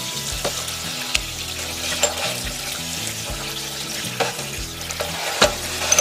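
Water spraying from a shower-style nozzle into a stainless steel tray, a steady hiss, with a few sharp clinks of metal parts against the tray.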